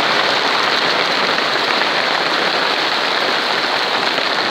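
A heavy hail shower falling steadily, the hailstones pattering densely on the polytunnel's plastic cover.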